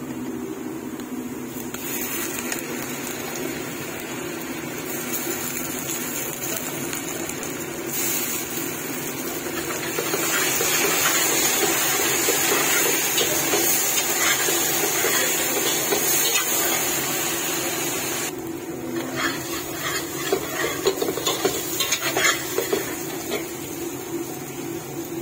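Chopped onions and curry leaves sizzling in oil in a stainless steel pot while a metal spatula stirs them, scraping against the pot. The sizzle sets in about two seconds in and is loudest in the middle; toward the end it eases and the spatula's scrapes and clinks stand out. A steady low hum runs underneath.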